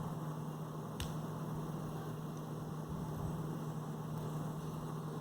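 Steady low electrical hum with faint hiss, and a single sharp click about a second in.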